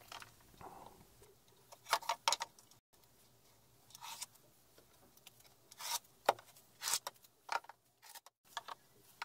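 Wooden strips and a wooden drawer box knocking and clattering as they are handled and pushed into a shelf cube, a scatter of sharp knocks, some in quick pairs.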